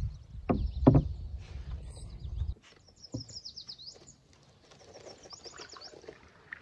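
Canoe paddling: a low rumble with two sharp knocks about half a second and a second in, which cuts off abruptly after about two and a half seconds. Then a songbird sings two quick runs of high whistled notes.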